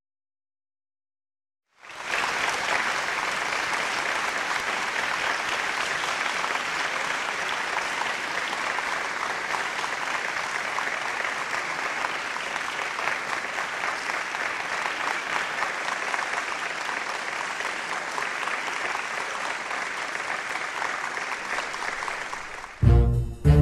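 Audience applauding steadily for about twenty seconds, starting after a couple of seconds of silence. Near the end, loud jazz with brass cuts in.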